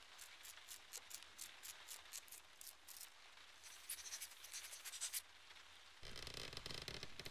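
Light scratching and ticking of small animal claws on wooden floorboards, about five ticks a second, turning into harsher scratching strokes midway and a louder, denser scrape near the end.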